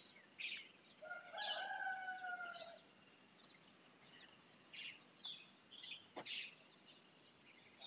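A rooster crows once, a long call of nearly two seconds that falls slightly at the end. Scattered bird chirps and a high chirp repeating about three times a second carry on throughout.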